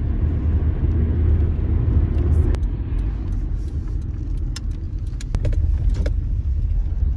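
Car being driven, heard from inside the cabin: a steady low rumble of road and engine noise, with a few scattered light clicks.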